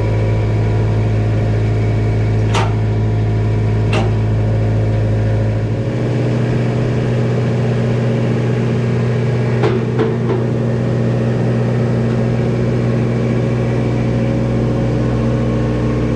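1990 New Holland skid steer's engine running steadily at idle, its note shifting slightly about six seconds in. A few sharp metallic clanks sound over it, twice early on and as a close pair past the middle, as the splitter attachment is unhooked.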